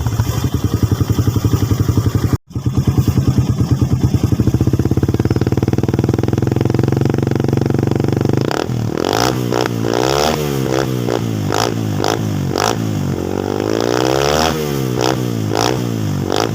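Suzuki Raider 150 two-stroke engine breathing through an Apido power pipe (expansion-chamber exhaust) with no silencer, idling with an even pulsing beat. The sound drops out for an instant about two and a half seconds in. From about eight seconds the engine is revved, the throttle blipped up and down several times.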